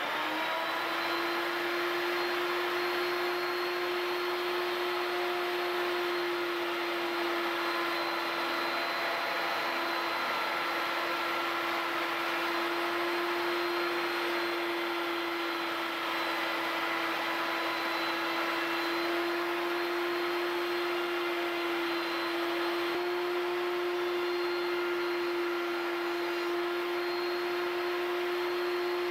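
Table-mounted router with a 1/4-inch roundover bit spinning up to speed and running with a steady whine while the edges of an end-grain cutting board are rounded over.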